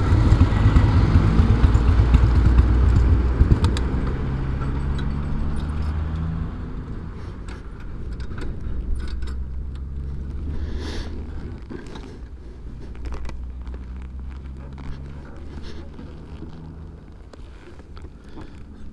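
Motorcycle engine running, loud at first and easing off over about the first six seconds, then settling into a quieter, steady low engine note.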